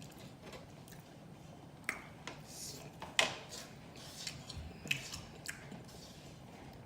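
Close-up mouth sounds of someone eating: chewing with scattered sharp, wet lip-smacking clicks, the loudest about three seconds in.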